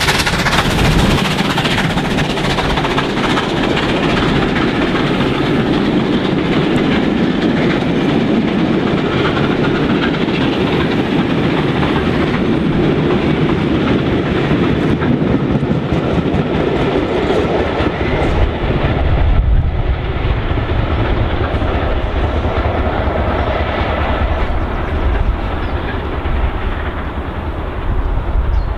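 Unrebuilt Bulleid Battle of Britain class three-cylinder 4-6-2 steam locomotive 34067 Tangmere passing close while working hard, followed by its train of coaches rolling past with a steady clickety-clack of wheels over rail joints. The train noise is loud and continuous, with the low rumble growing stronger in the later part as the coaches go by.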